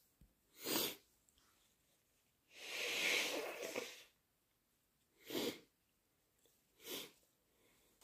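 A person's wet, induced sneezes, coming as separate bursts. There are short ones about a second in, near five seconds and near seven seconds, and a longer, louder one of about a second and a half around three seconds.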